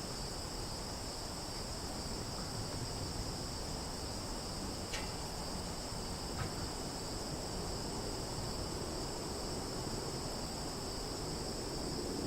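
Summer forest ambience: a steady, unbroken high-pitched insect chorus over a low background rumble, with a couple of faint ticks about five and six seconds in.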